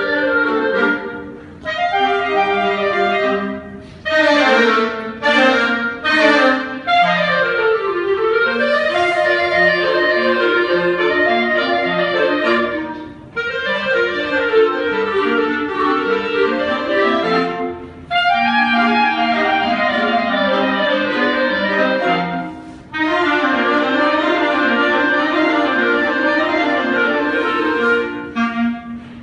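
Orchestral music with a clarinet carrying the melody over the ensemble, breaking off briefly between phrases.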